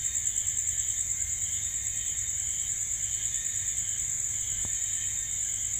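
Night insects, most likely crickets, chirping in a continuous high-pitched trill with a rapid, even pulse.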